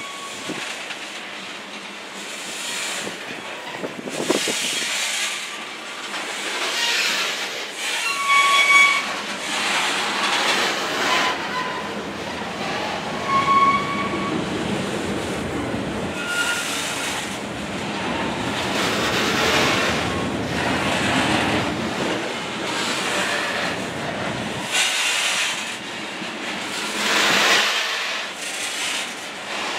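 Freight train's hopper cars and boxcars rolling past close by: steel wheels clattering on the rails, swelling and fading as each car goes by, with a few brief high-pitched wheel squeals.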